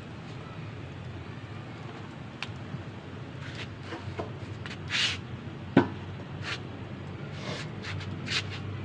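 A metal karahi being lifted off a wood-fired chulha with a cloth and set down on the floor: cloth rustles and light clinks, then one sharp knock a little before six seconds in. Under it runs a steady low rumble.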